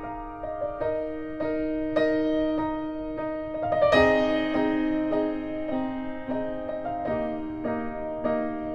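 Background music: soft piano playing a slow melody over held chords.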